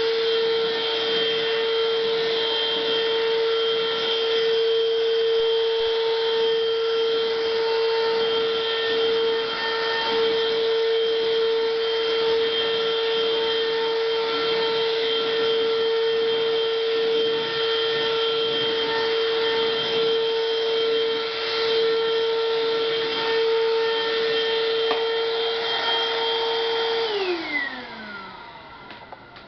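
Eureka Superlite stick vacuum running steadily on bare floor with its brush roll switched off, a steady motor whine. Near the end it is switched off and the motor winds down, its pitch falling away.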